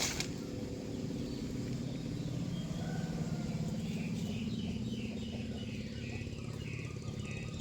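Steady low hum of a motor, with a bird chirping repeatedly, about two to three short chirps a second, from about four seconds in.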